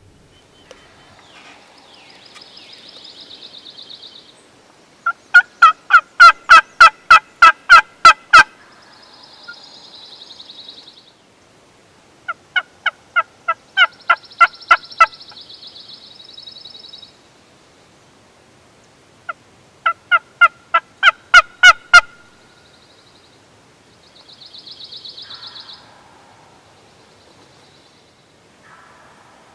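Turkey yelping: three loud, close series of yelps, each about three seconds long at roughly three notes a second. Fainter high trills sound in the gaps between the series.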